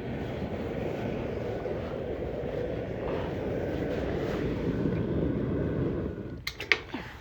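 A steady low rumbling noise, like a running engine or machine, that cuts off about six seconds in, followed by a few sharp clicks or knocks.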